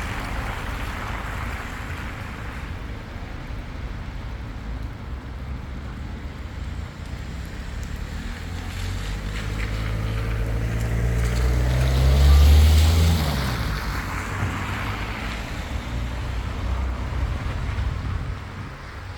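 Steady rain hiss on a wet street, with a motor vehicle driving past: its engine and tyre noise swell to a peak about twelve seconds in and then fade away.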